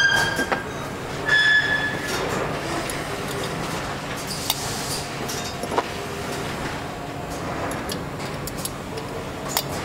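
Engine assembly line noise: a steady machinery hum with scattered sharp metallic clicks. Two short high-pitched whines come in the first two seconds.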